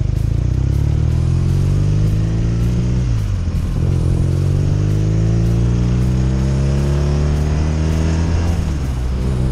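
BMW R nineT's boxer twin accelerating hard under load, revs climbing steadily, dropping with an upshift about three seconds in, climbing again and dropping with a second upshift near the end.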